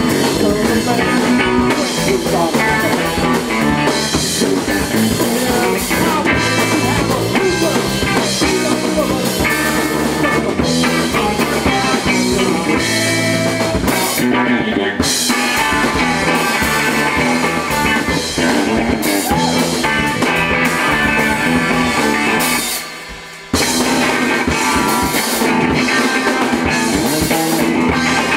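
Live punk rock band playing: electric guitar and drum kit, loud. The band stops briefly about three-quarters of the way through, then comes straight back in.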